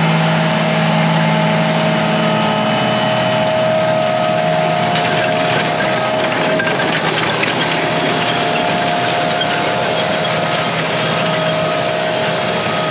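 Large farm tractor running steadily under load, a low engine tone and a held higher whine over a constant rush of noise.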